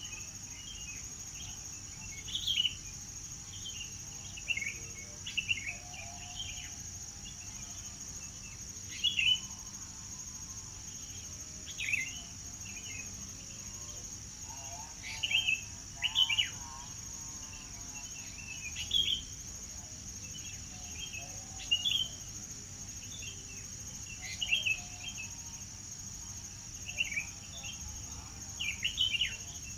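Songbirds chirping in short repeated phrases every second or two, over a steady high-pitched insect drone.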